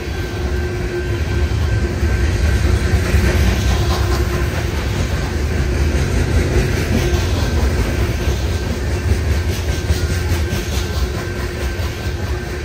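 Loaded coal hopper cars of a freight train rolling past: a steady low rumble of steel wheels on rail, with clickety-clack as the wheels pass over rail joints. It eases slightly near the end.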